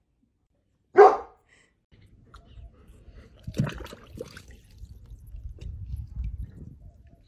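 A golden retriever barks once, loudly, about a second in. Then a low steady rumble with small scattered knocks.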